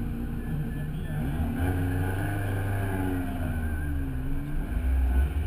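Car engine revving at a standstill, its pitch rising and falling over a steady deep idle rumble, with the low rumble getting stronger near the end.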